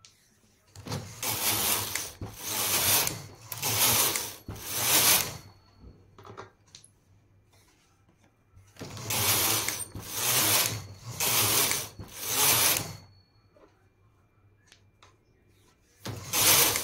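Knitting machine carriage pushed back and forth across the metal needle bed, knitting rows. Each pass is a rasping clatter about a second long: four passes in a row, a pause of a few seconds, then four more, and another pass starting near the end.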